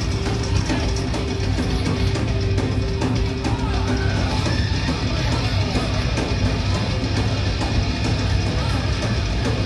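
Heavy metal band playing live: distorted electric guitar and bass over a drum kit, loud and dense. One long held note ends about four seconds in.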